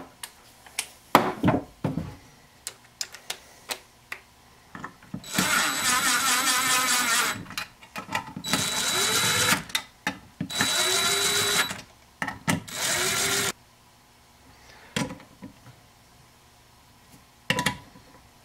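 Electric drill/driver running valve body bolts down, in four runs of a second or two each, the motor pitch rising as each run starts. Before the runs come light metal clicks as the bolts are set in place, and two more clicks near the end.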